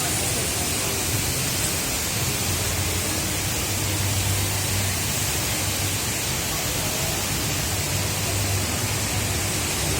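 Steady rushing of water from the Rain Vortex, Jewel Changi Airport's tall indoor waterfall, an even hiss with no breaks or changes.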